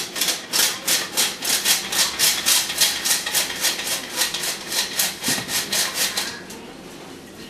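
Hand-operated tin flour sifter being worked, its blades scraping the mesh in a quick rhythmic rasp of about four strokes a second as it sifts flour and other dry ingredients. The rasping stops about six seconds in.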